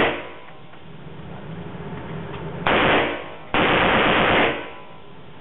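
Gunfire in an indoor shooting range lane: a shot dying away right at the start, another just before three seconds in, and a longer blast lasting about a second just after it.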